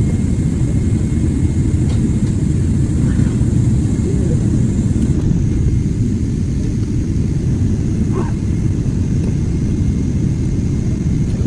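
Steady low rumble of cabin noise inside a Boeing 777 airliner in flight: engine and airflow noise heard through the fuselage, with a faint hiss above it.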